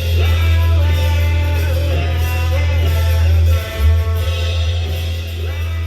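Rock music with a singing voice over a strong, sustained bass.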